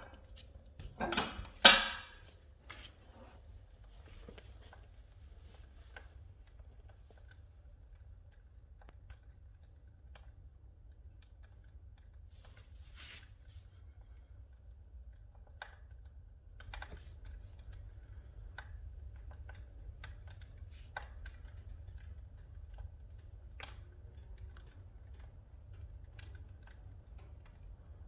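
Oak firewood burning in a wood-burning fireplace, crackling with scattered sharp pops over a low steady hum, with two loud knocks in the first two seconds.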